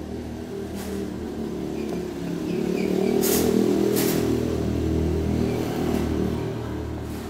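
A motor vehicle passing by, its engine growing louder to a peak a few seconds in and then fading. Two short, sharp clicks come near the middle.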